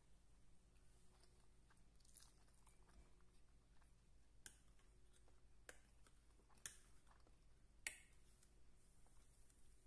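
Faint chewing of a mouthful of rice and beef, with a few sharp clicks, about one a second in the second half, of a plastic fork against a clear plastic takeout container.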